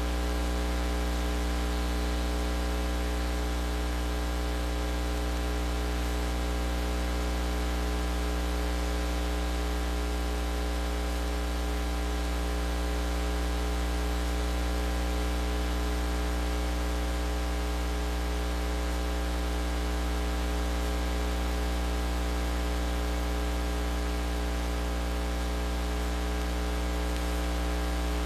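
Steady low electrical mains hum with a ladder of higher overtones, under constant hiss: line noise on the audio track of a silent home-movie transfer, with no other sound.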